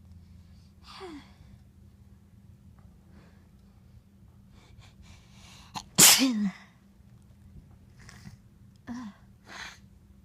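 A person sneezes once, loudly and suddenly, about six seconds in, the sneeze ending in a short falling voiced tail. Quieter breathy sounds come before and after it.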